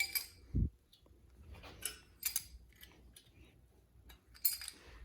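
A dull thump about half a second in, then a few light, sharp metallic clinks spread through the rest, from small metal pieces being handled in the workshop.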